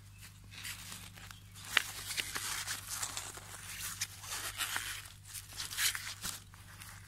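Crinkling and rustling of a thin black plastic seedling tray of pansies being handled and lifted with a gardening glove, with a sharp click almost two seconds in.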